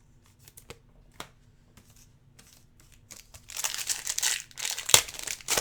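A trading-card pack wrapper crinkling and tearing as it is opened, starting a little past halfway through, after a few faint clicks of cards being handled.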